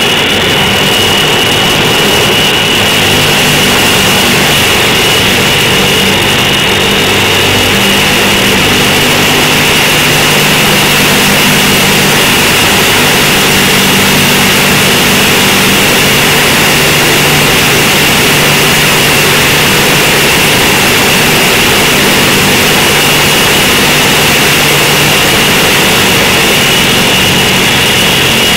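Tu-95's Kuznetsov NK-12MP turboprop running with its contra-rotating propellers turning: a loud, steady drone with a high, steady whine above it.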